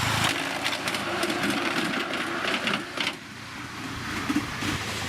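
A 5-inch-gauge live-steam locomotive running on its track, giving a fast rhythmic mechanical clatter that drops away about three seconds in.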